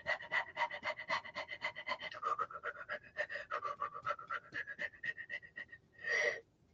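A woman panting rapidly through an open mouth, about six quick breaths a second, on cue in a guided breathing exercise after a held breath. The panting stops near the end with one longer, louder breath.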